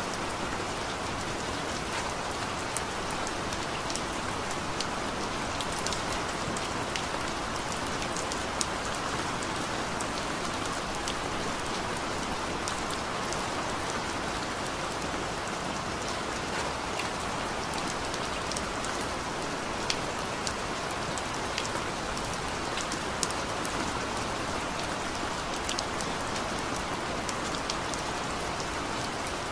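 Steady recorded rain, an even hiss of rainfall with scattered sharp drop ticks.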